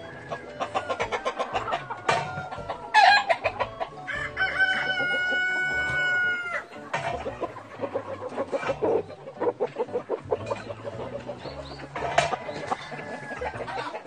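Flock of Cheonggye (green-egg-laying) chickens clucking in quick runs of notes, with a rooster crowing once in the middle, one long call of about two and a half seconds.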